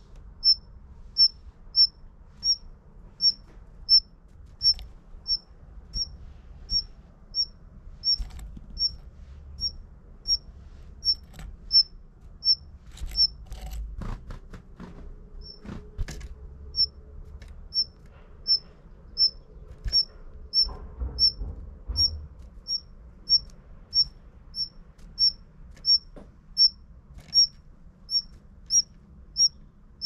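Female Daurian redstart calling: a thin, high 'hit' note repeated evenly, about one and a half a second, close to the microphone. The calls pause for a few seconds about halfway, with a few faint knocks, then resume.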